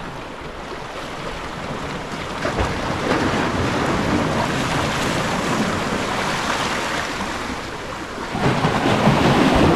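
Sea surf washing in at the harbour's edge, swelling about three seconds in and again near the end, with wind buffeting the microphone.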